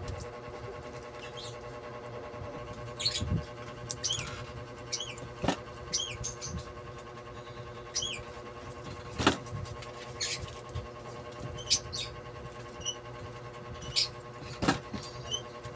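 Copper magnet wire being pulled by hand through the slots of an alternator stator during rewinding. It gives short, high squeaky scrapes every second or so and three sharp clicks, over a steady low hum.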